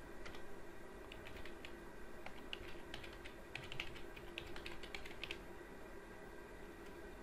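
Computer keyboard being typed on in irregular runs of quick key clicks, stopping near the end, over a faint steady hum.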